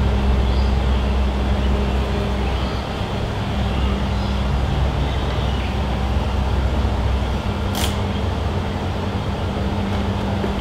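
Steady machine hum with a low rumble, unchanging throughout, with one sharp click about three quarters of the way through.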